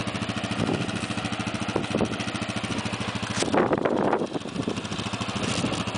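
ATV engine running at low revs under load as the quad crawls up a steep rocky trail, with a steady pulsing beat. A louder, brief burst of noise comes about three and a half seconds in.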